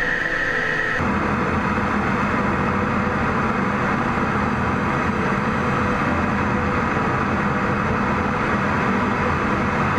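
Fighter jet's engines at takeoff power heard from inside the cockpit during a carrier catapult launch: a loud, steady rushing noise. About a second in it changes abruptly from a whine to a broader, deeper rush.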